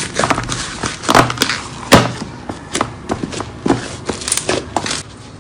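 Slime being squeezed and poked by hand, giving a string of irregular sharp clicks and wet pops as air pockets burst; the loudest pops come one and two seconds in, and it quietens near the end.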